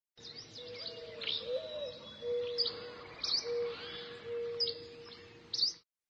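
Birds chirping: a dozen or so short, sharp high chirps spread through the clip over a steady lower tone and faint background noise. The sound cuts off abruptly near the end.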